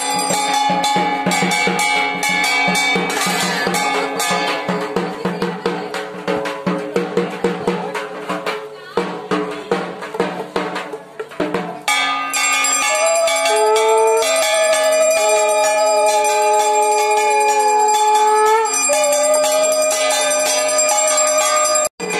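Puja bell ringing with drumming in fast, even strokes, thinning out after about eight seconds; then, with an abrupt change about halfway, music of long held notes that slide between pitches over a steady drone.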